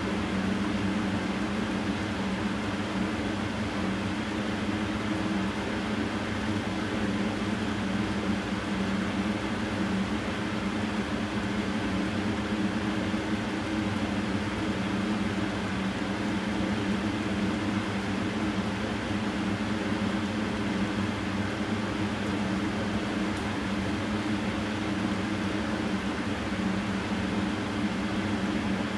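Steady mechanical hum: a constant low drone over an even hiss, unchanging and with no knocks or clicks.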